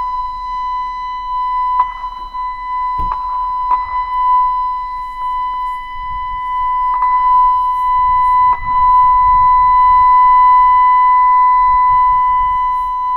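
LRAD DS-60XL emergency warning speaker sounding its steady test tone: one unbroken, unwavering high tone during the system's monthly test, ahead of the voice message.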